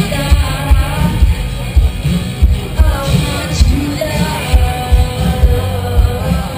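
Music with a singing voice over a steady, thumping beat.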